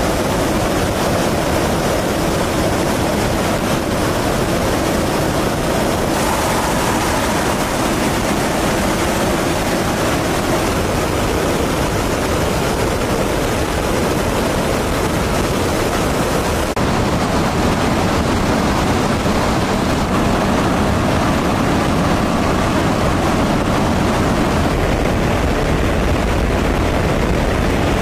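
Steady jet engine and rushing-air noise of fighter jets in flight, shifting in tone about six seconds in and again about seventeen seconds in.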